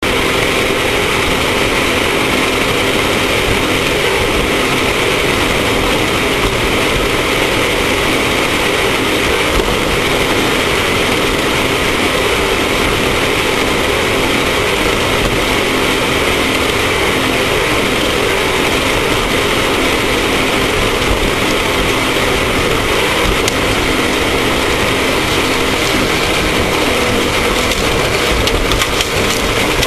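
Off-road race vehicle's engine running steadily under a loud, continuous rush of noise, with no let-up for the whole stretch.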